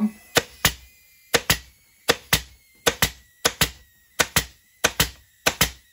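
Pneumatic upholstery staple gun firing staples through Dacron batting into a wooden chair frame. It gives a steady run of sharp snaps in pairs, about one pair every 0.7 seconds.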